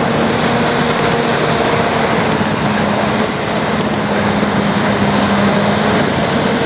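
Diesel engine of heavy construction equipment running steadily at working revs, with a dense mechanical rumble and a steady engine tone.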